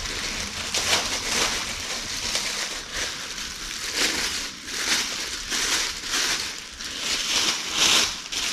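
Plastic bubble-wrap packaging crinkling and rustling in irregular swishes as a fishing rod is pulled out of it.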